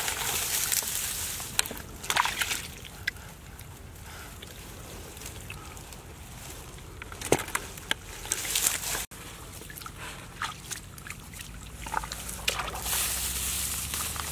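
Hands sloshing and splashing in shallow muddy water, groping through mud and wet grass stalks, with a few sharper splashes now and then.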